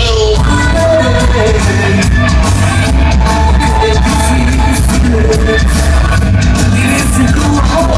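Live band playing loud dance music, with a heavy bass beat, drums and a pitched melody line.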